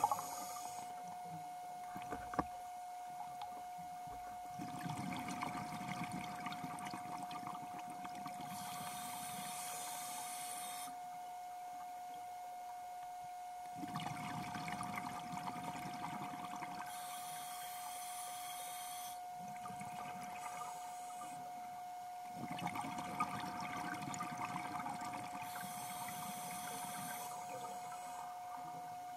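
Scuba diver breathing through a regulator underwater: three breath cycles about eight seconds apart, each a few seconds of exhaled bubbles followed by a short high hiss of inhaling. A steady thin tone runs underneath.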